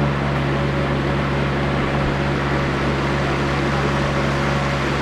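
Countertop blender running steadily, its motor giving a constant loud hum as it blends a strawberry-banana fruit smoothie with milk.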